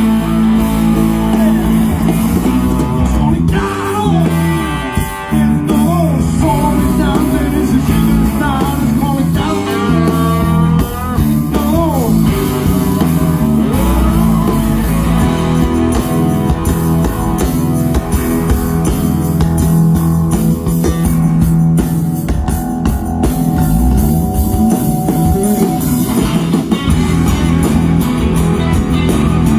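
Rock band playing live through a PA during a sound check: guitar, bass and drum kit, with singing in places.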